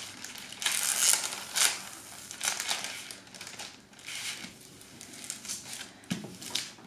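Plastic cover film on a diamond-painting canvas crinkling and rustling in a series of short bursts as hands press and smooth it flat.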